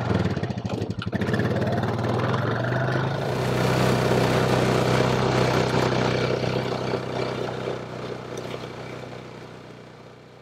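Honda quad bike engine catching and settling into a steady running note. About three seconds in the bike drives off through tall oilseed rape, adding a rushing noise from the crop, and the sound then fades away over the last few seconds.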